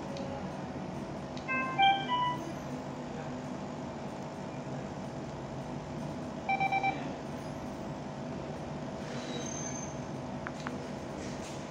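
Electronic beeps from a handheld cardiometry monitor: a short tune of three or four notes about two seconds in, then four quick beeps on one pitch about halfway through, over a steady background hum.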